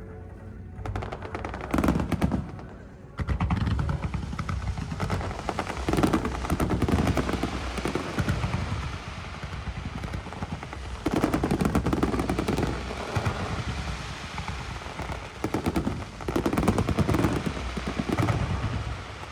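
Fireworks going off in rapid succession: a dense barrage of bangs and crackle, with heavier surges several times.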